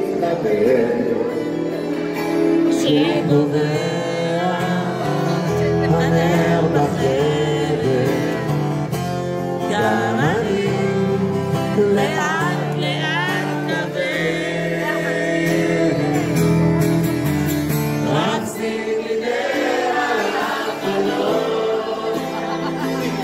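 Live pop song with a male lead singer, acoustic guitar and band, and the audience singing along.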